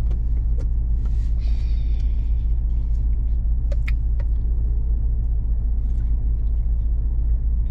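Steady low rumble of a car in motion heard from inside the cabin, the road and engine drone unbroken, with a few faint clicks about four seconds in.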